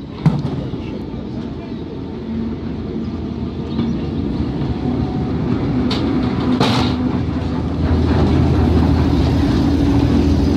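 Diesel shunting locomotive moving slowly past, pushing a brake van, its engine running and growing louder as the loco draws level. A sharp knock at the very start and a couple of short metallic clanks midway.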